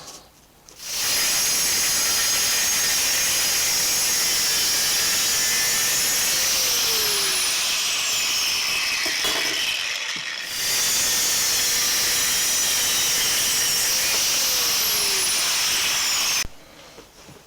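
A power tool working a hardened steel blade blank, running steadily in two long runs with a short break about ten seconds in.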